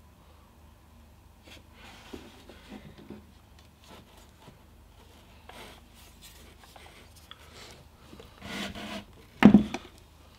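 Handling noise from a Profoto B2 flash head being turned in the hands on a wooden desk: faint rubbing and scraping, then a louder rustle and a sharp knock near the end.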